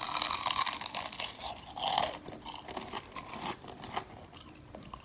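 Crisp crunching of an oven-reheated deep-fried shrimp ball's shredded-pastry coating, a dense crackle for about two seconds, then sparser crackles. The crunch is the sign that the fried coating has turned crisp again.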